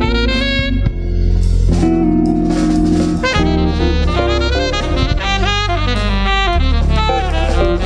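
Live jazz quartet playing: an alto saxophone solos in quick, shifting runs over electric bass and a drum kit with cymbals.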